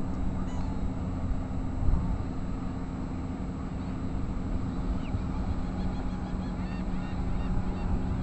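Beach ambience: a steady rush of wind and surf under a constant low drone, with faint, short bird calls, likely gulls, in the background.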